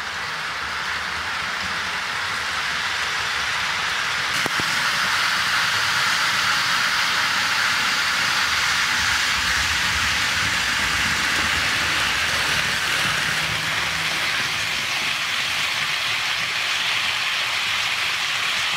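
HO scale model freight train rolling along sectional track, its wheels running on the rails along with the locomotives' motors: an even rushing noise that grows louder over the first few seconds as the train comes closer, then holds steady.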